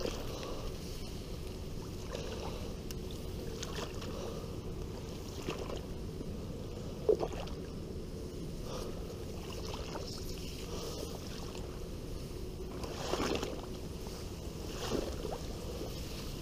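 Tall grass and reeds swishing against a person pushing through them on foot: a steady soft rustle with a few louder brushes, the sharpest about seven seconds in.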